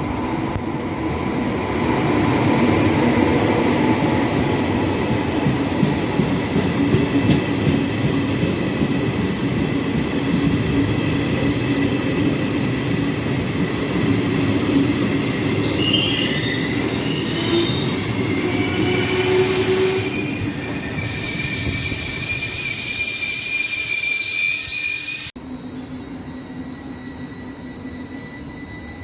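A train running along the track with its wheels squealing in thin high tones that waver and glide in pitch. About 25 seconds in, the sound drops abruptly to a quieter steady hum.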